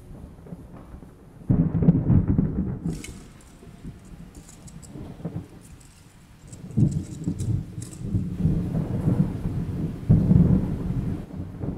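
Deep thunder-like rumbles swell up three times, with a faint crackling patter between them.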